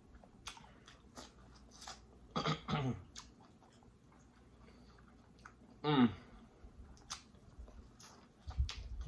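Close-up eating sounds: chewing with scattered wet mouth clicks and smacks. There is a short pitched vocal sound about two and a half seconds in and a falling one about six seconds in.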